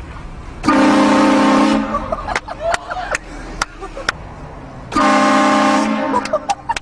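Vehicle-mounted four-trumpet air train horn, fed by an onboard compressor, sounding two loud blasts of a steady multi-note chord. Each lasts about a second, and the second comes about four seconds after the first.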